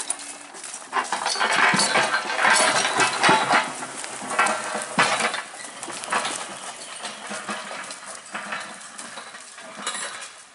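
A bullock team dragging a log past: the log chain clinks and rattles and the steel log shoe scrapes over the leaf-littered ground, with the bullocks' hooves trampling. It grows loud about a second in, then fades as the team moves off.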